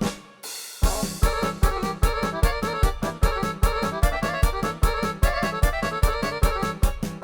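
Balkan-style arranger music: sampled Guerrini Superior 2 accordion sound played on a Ketron Event keyboard over a steady fast drum beat. The music drops out briefly at the start and comes back in about a second in.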